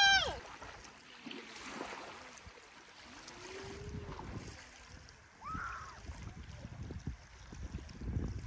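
Faint waterside background of moving water and wind, with a few brief distant voice sounds and low rumbling of wind on the microphone near the end.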